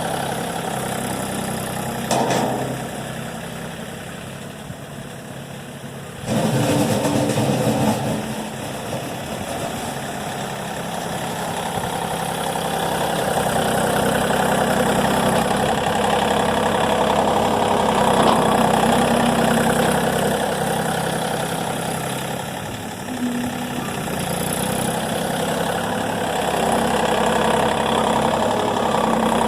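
A motor vehicle engine running steadily. It eases off a little about two seconds in and picks up louder about six seconds in, then rises and falls slowly in level.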